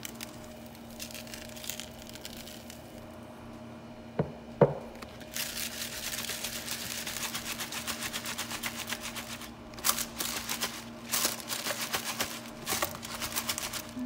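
Toasted rice powder poured onto salted fish in a plastic tub, then the tub shaken by hand so the fish and powder rustle and scrape against the plastic. There are two sharp knocks a little after four seconds in, and a dense stretch of rustling follows from about five seconds in.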